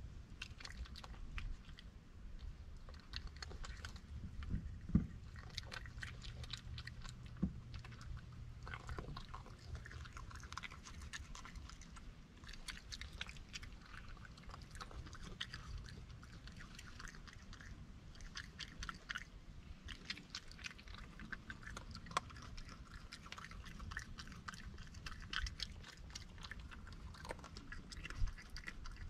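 Raccoon chewing and crunching shelled peanuts off a wooden table, a steady run of small crisp crunches, with a few louder knocks against the wood.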